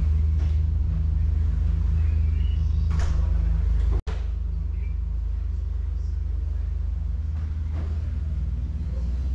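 Diesel engines of an aluminium catamaran passenger ferry running with a steady low drone as the ferry gets under way, heard from inside the cabin. The sound cuts out for an instant about four seconds in, then the drone carries on slightly quieter.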